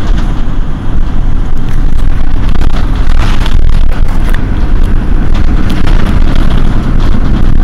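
A Mercedes-Benz Citaro city bus's rear-mounted diesel engine idling while the bus stands at a stop, a loud, steady low rumble.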